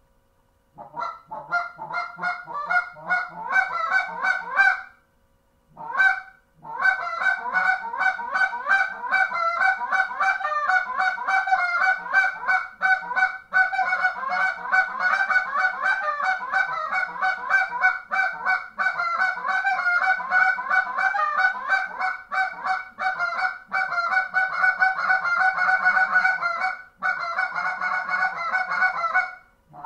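Zink Little Man short-reed goose call with a worn black Zink guts insert, blown in a fast, almost unbroken run of short honks and clucks. The run starts about a second in and breaks off briefly a few times.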